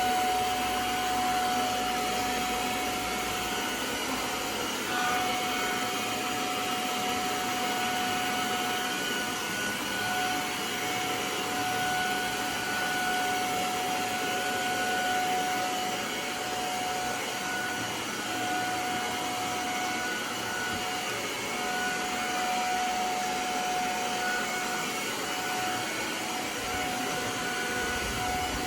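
Hoover portable spot cleaner's suction motor running steadily, drawing water out of a soaked mattress. It has a steady whine that drops out briefly a few times.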